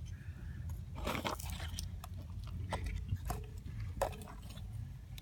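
Handling noise from a camera moved about inside a tortoise burrow: crunchy scraping against dry soil and roots about a second in, a few sharp knocks near the three- and four-second marks, over a steady low rumble.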